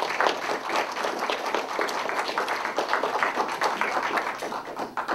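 Audience applauding with hand claps after a song, the clapping fading away at the end.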